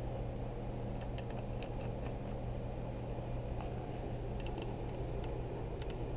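A few faint, sharp clicks as a pistol slide is handled and set up in a sight pusher, over a steady low hum.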